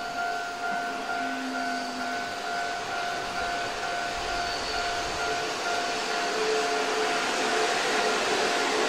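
Keihan electric train approaching through the station: a rushing noise that grows steadily louder toward the end, under a steady high tone.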